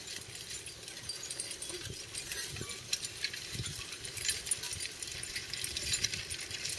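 Metal harness chains and hardware on a mule team jingling and clinking in a constant patter of small metallic clicks as the mules pull a disc harrow.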